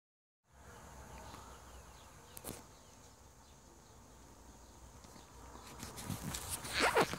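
Faint outdoor background hiss with a single click about two and a half seconds in. From about six seconds in come louder, irregular rustling and scuffing sounds close to the microphone.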